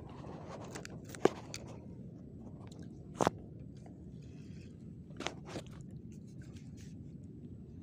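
Close handling noise from hands working a fishing line and rig beside the microphone: several sharp clicks and knocks, the loudest about a second in and about three seconds in, with rustling, over a steady low rumble.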